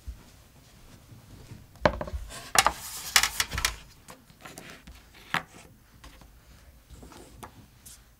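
Handling sounds on a wooden table: a cluster of sharp knocks and scraping starting about two seconds in and lasting under two seconds, then a single knock about five seconds in.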